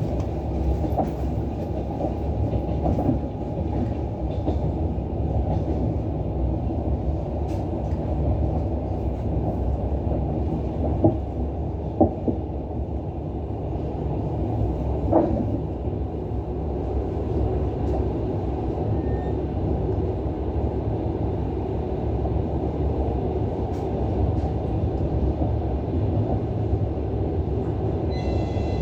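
Passenger train running along the track: a steady rumble of wheels on rails, with a few sharp knocks as the wheels strike rail joints.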